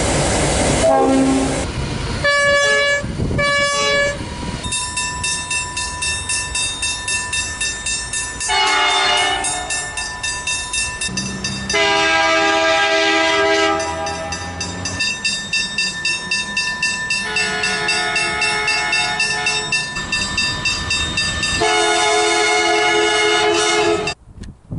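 Train horns sounding a series of blasts: two short toots, then several held for about two seconds each. They sound over the rumble of passing rail cars with a regular wheel clatter.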